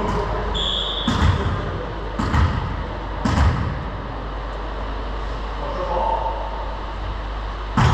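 A volleyball bounced three times on a hardwood gym floor, about once a second, echoing in a large hall with voices in the background.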